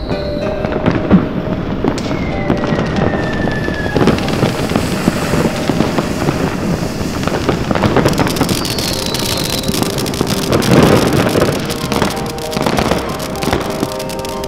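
A Jorge SOS ground fountain firework burning, its continuous spray of sparks and stars giving a dense run of small pops and crackles. Background music plays along.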